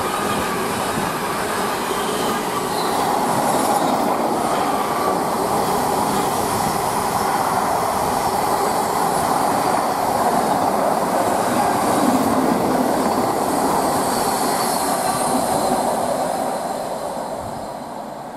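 Container freight train's wagons running past on the main line, a steady rumble of wheels on rails that fades over the last couple of seconds as the train draws away.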